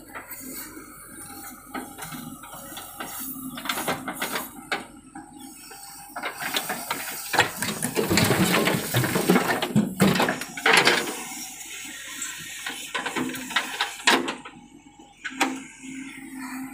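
JCB 3DX backhoe loader's diesel engine running steadily, with scattered knocks of clods on the trolley. About halfway through, a loud rush of soil and clods pours from the loader bucket into the metal tractor trolley and lasts a few seconds.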